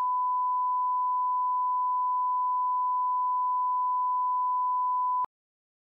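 Steady 1 kHz line-up test tone, the reference tone that goes with colour bars at the head of a tape or film, cutting off suddenly with a click a little over five seconds in.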